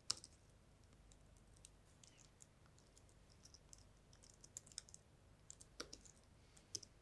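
Faint, irregular keystrokes on a computer keyboard as code is typed, with one sharper click at the very start and small runs of keys in the second half.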